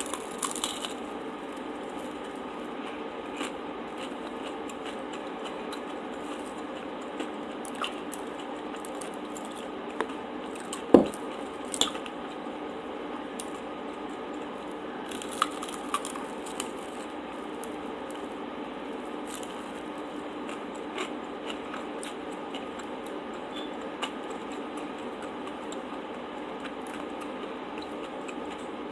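Close-miked eating: soft squishy chewing and mouth sounds over a steady hiss, with scattered small clicks and one sharp click about eleven seconds in.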